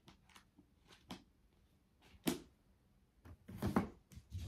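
Books and tarot card boxes being moved about on a shelf: scattered light knocks, a sharp click about two seconds in, and a short burst of rustling and scraping near the end.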